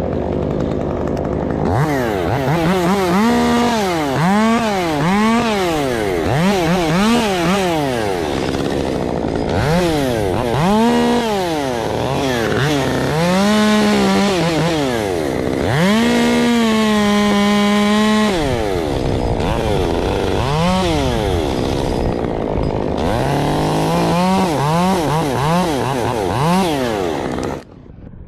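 Chainsaw engine revved up and down again and again, with one longer spell held at high revs, then cut off suddenly near the end.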